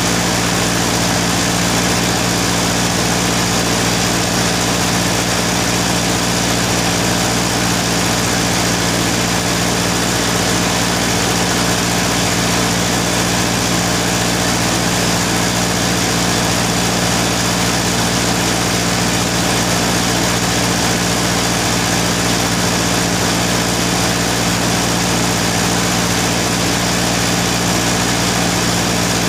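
A machine running steadily: a constant low hum with a hiss over it, without a break or change.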